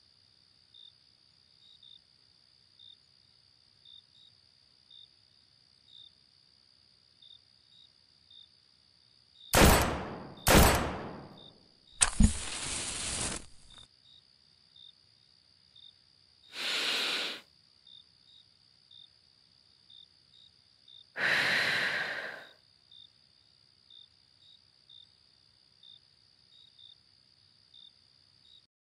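Crickets chirping steadily, about one or two chirps a second over a steady high trill. Near the middle come two loud sharp bangs about a second apart, then a click and about two seconds of hiss, and later two breathy rushes, each under a second long.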